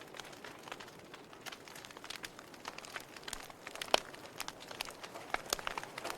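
Wood fire burning in a fireplace, crackling with irregular sharp pops and snaps over a soft hiss, one louder pop about four seconds in and a quick run of pops near the end.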